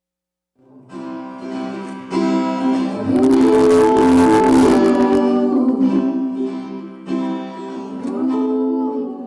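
Acoustic guitar played with singing, starting about half a second in after silence; a live acoustic song performance.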